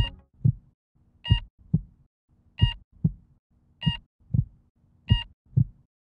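Heartbeat-like sound: low double thumps about every 1.3 s, the first of each pair topped by a short high beep like a heart monitor's. It is presented as the sped-up sound of the infrared jet pulses of the black hole binary GRS 1915+105.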